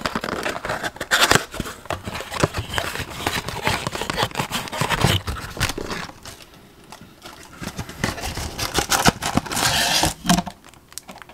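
Hands tearing open a cardboard Topps Chrome blaster box and pulling out its wrapped card packs: irregular scraping, rustling and clicks of cardboard and pack wrappers, quieter for a couple of seconds in the middle.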